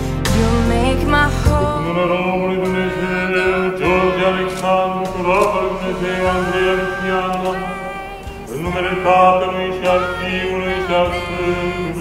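Church chant: a voice sings a gliding, ornamented melody over a steady held drone note, set in the film's music.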